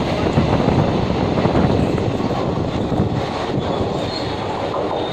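Passenger coaches of an express train rushing past at speed, wheels running loudly on the rails, the noise easing slightly near the end as the last coaches go by.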